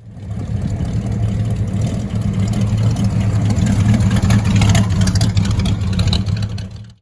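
Engine of a 1933 Chrysler coupe running at a steady speed, loud and even, fading out near the end.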